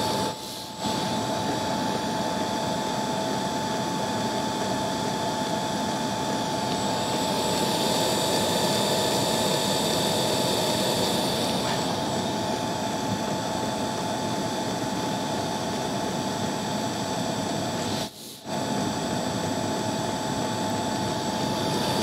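Portable diesel air heater running steadily: fan and burner noise with a constant whine. The sound briefly drops out twice, just after the start and about three-quarters of the way through.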